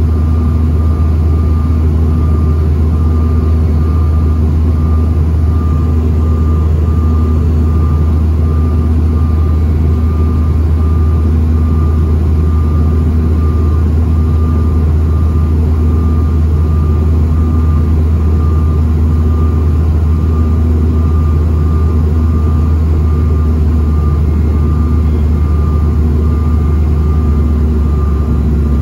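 Steady cabin drone of a Bombardier CRJ-900 in flight: its rear-mounted turbofan engines and the rushing air give a deep rumble with a steady whine above it.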